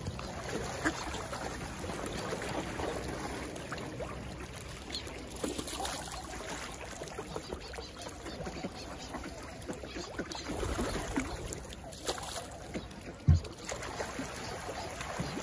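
Water splashing and lapping as a dense flock of ducks (northern pintails, common pochards and tufted ducks) swims and jostles close by, with scattered light splashes and clicks and one sharp knock about thirteen seconds in.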